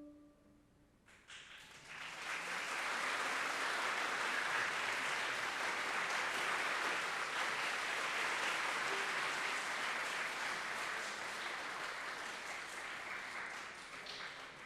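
The last marimba note rings out and fades. About a second in, an audience starts applauding, builds quickly to steady clapping, and tapers off near the end.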